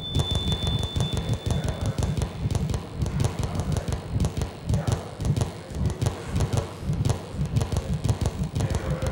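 Glitchy electronic noise soundtrack of an audio-visual installation: dense rapid clicks and crackle over a pulsing low rumble, with a thin high steady tone for the first couple of seconds.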